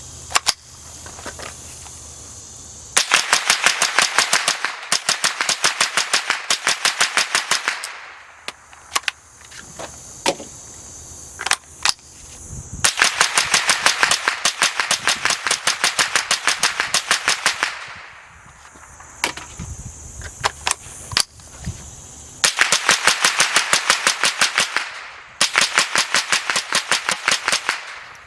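Suppressed Smith & Wesson M&P 15-22 rifle firing .22 LR in rapid semi-automatic strings. There are three long strings of quick shots, each a few seconds long, with a few single shots in the pauses between them. The rifle has gone 800 rounds without cleaning or re-lubing.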